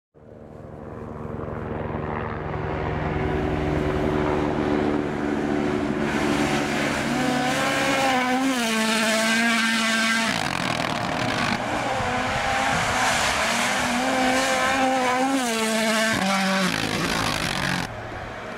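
Rally car engine at full throttle on a stage, growing louder over the first few seconds, its revs climbing and dropping sharply through gear changes twice. The sound changes abruptly near the end.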